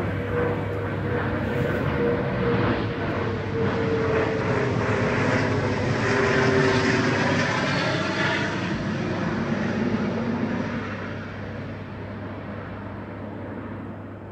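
A propeller airplane flying over: its engine drone swells to a peak about halfway through, slowly drops in pitch, then fades away.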